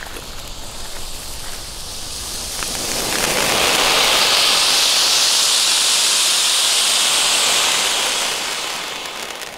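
Nico Bonsai silver fountain, a small ground firework, spraying sparks with a steady hiss. The hiss swells about three seconds in, holds, and dies away near the end.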